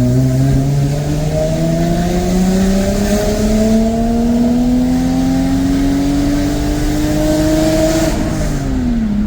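Lexus SC300's 2JZ straight-six breathing through aftermarket headers and a new exhaust, accelerating in one long steady pull, its pitch climbing for about eight seconds. Near the end the throttle eases off and the engine falls back to a steady lower note.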